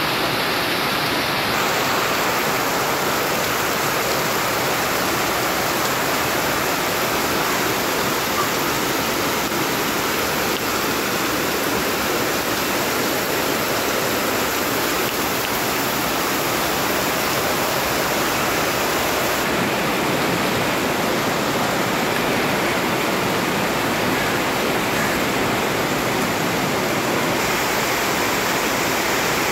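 Heavy rain pouring down steadily: a dense, even hiss that does not let up.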